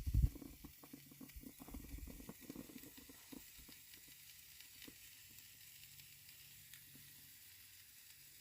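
Faint crackling and ticking, with a low thump at the start and scattered clicks that thin out after a few seconds.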